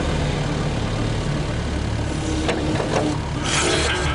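An engine idling steadily with a low rumble, with a couple of faint clicks about two and a half to three seconds in and a short rushing noise near the end.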